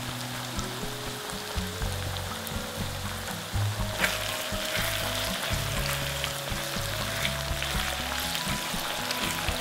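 Minced pork, onion and leek sizzling in oil in a wok, with a spatula stirring and scraping through it from about four seconds in. Light background music plays underneath.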